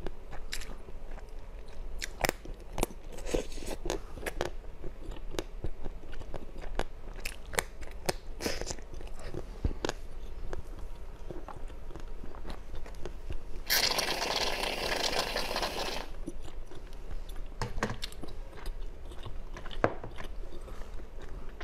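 Close-miked mouth sounds of chewing jelly candy: many short wet clicks and crunches. About two-thirds of the way in, a rushing hiss lasts about two seconds.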